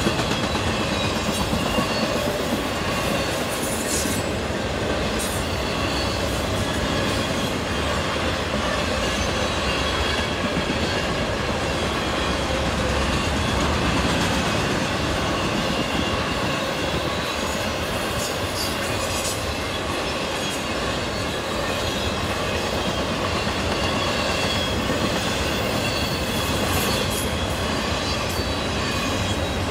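CSX intermodal freight train's double-stacked container cars rolling past, making a steady noise of wheels on the rails.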